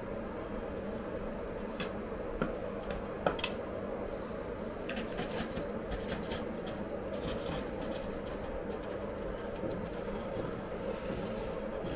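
Metal spatulas scraping and clicking on a frozen steel ice cream roll plate: sharp clicks about two and three seconds in, then a run of scrapes in the middle. Underneath is a steady mechanical hum.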